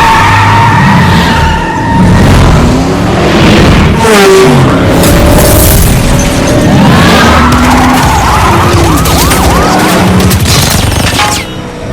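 A dense, loud action-film sound-effects mix of car engines revving, tires skidding and booming hits, with gliding siren-like tones and music underneath. It eases briefly near the end.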